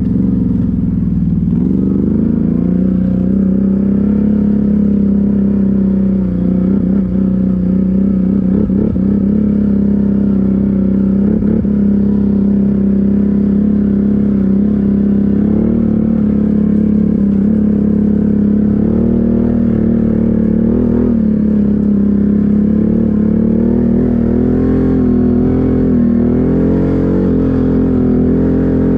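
ATV engine running under steady throttle while riding a rough trail. Its pitch climbs a little in the first few seconds, then holds fairly even with small rises and falls as the throttle varies.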